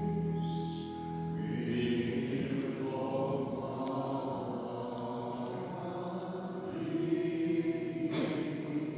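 Choral chant: voices holding long sustained notes, over a low held note that stops about a second in.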